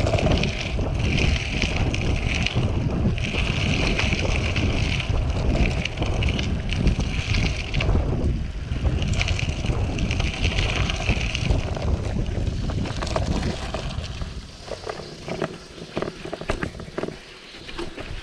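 Wind buffeting the microphone of a camera on a moving bicycle, with tyre rumble from the dirt trail. About 14 s in the wind rush drops away and scattered clicks and crackles from the tyres on the sandy track come through.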